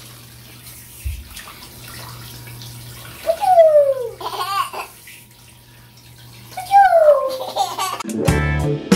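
A toddler squealing happily twice, each a loud falling cry, over water running in a bathroom. Guitar music starts near the end.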